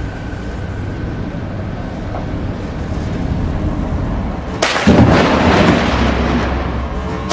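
Thunder during a tropical lightning storm: a low steady rumble, then a sharp, loud thunderclap about four and a half seconds in that rolls on with crackling.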